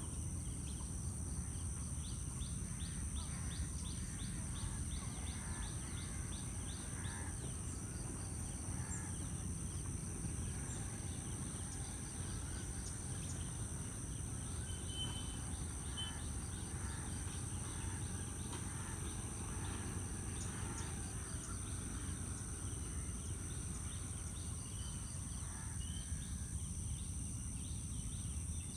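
Outdoor marsh ambience: insects keep up a steady high-pitched buzz at two pitches, small birds chirp here and there, and a low steady rumble runs underneath.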